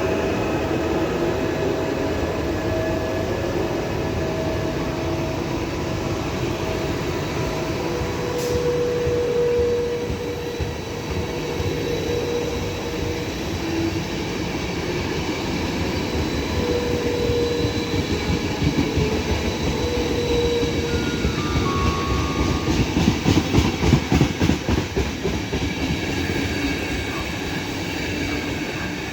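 Intercity train hauled by an E401 electric locomotive rolling through the station, with steady whining tones over the rumble. Rhythmic wheel clatter over rail joints peaks about two-thirds of the way through.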